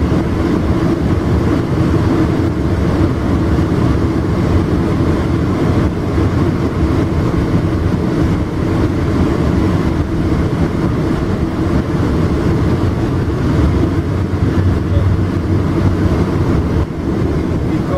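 Steady rumble of a Tri-Rail commuter train running at speed, heard from inside a passenger coach.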